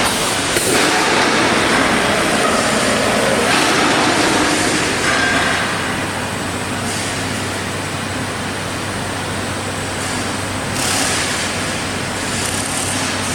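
Steady, loud machine noise from a reinforcing mesh welding line running in a factory, with a faint low hum under it.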